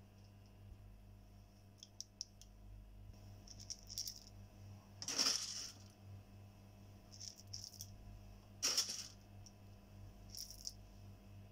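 Black peppercorns and cardamom pods dropped into a stainless-steel mixer-grinder jar, rattling against the steel in a few short bursts, the largest about five and nine seconds in, over a faint steady hum.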